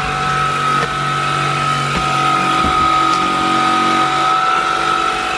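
PuppyOO T10 Home cordless stick vacuum running over a wooden floor, its motor giving a steady high whine, with a couple of light knocks from the floor head a little after halfway.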